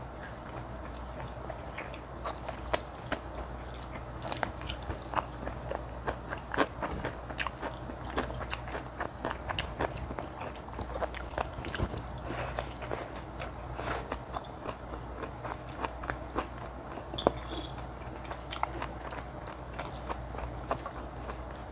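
Close-miked eating sounds: crunchy bites of yellow pickled radish and chewing of spicy mala xiang guo with noodles, made up of many short, crisp clicks and snaps.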